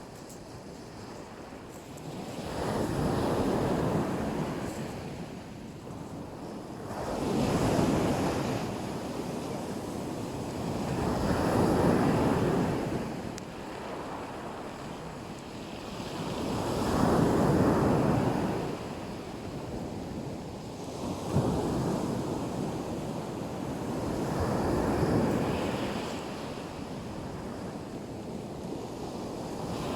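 Black Sea surf: waves breaking and washing on the shore, coming in surges every four to five seconds, about six in all, with a steady wash between them.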